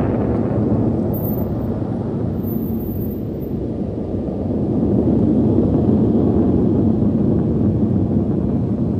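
Jet noise from a formation of military jets passing high overhead, low and steady, growing louder about five seconds in.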